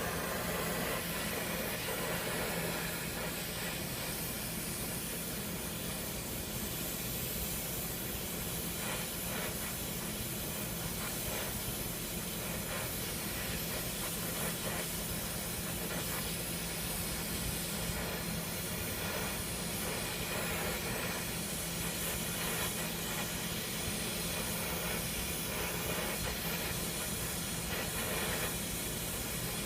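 Brazing torch flame hissing steadily as it heats a copper refrigerant joint, with a faint steady low hum underneath.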